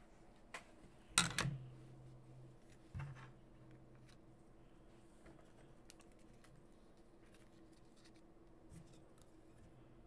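Scattered light clicks and taps from hands working at a desk, with one sharper click about a second in and a few fainter ticks after.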